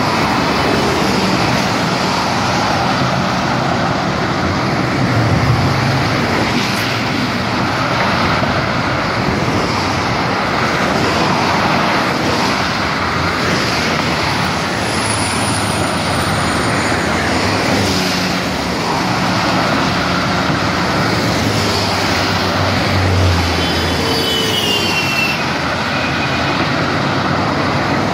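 Steady road and traffic noise from a moving vehicle on a busy multi-lane highway, the low hum of engines swelling briefly a couple of times.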